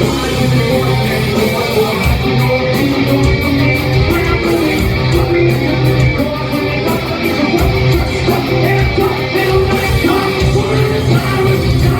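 Metal band playing live and loud: distorted electric guitars and a full band, with a singer's vocals.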